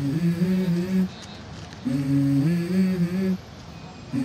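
Background music: a short hummed melody of a few stepped notes, repeated about every two seconds.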